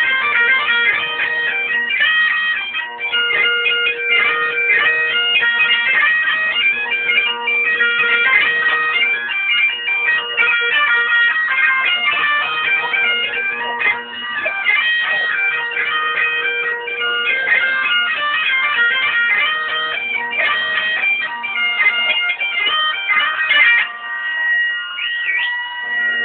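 Bagpipes playing a lively tune: the chanter's fast-changing melody runs over steady low drones. Near the end the melody stops on one long held note while the drones sound on.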